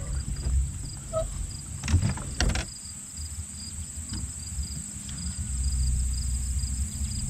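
Wind rumbling on the microphone out on open water, with a few sharp knocks about two seconds in and a faint high ticking repeating a few times a second.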